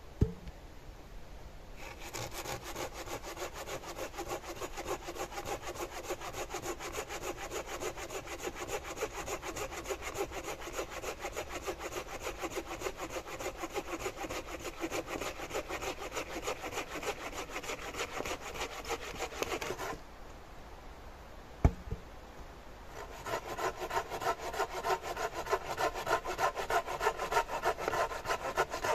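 Hand saw cutting through wood in steady back-and-forth strokes: a long run of sawing, a pause with a single knock about three quarters of the way in, then a second, shorter run of sawing.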